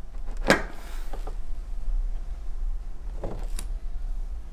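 Two knocks or clatters, a loud one about half a second in and a weaker one a little after three seconds, over a steady low hum.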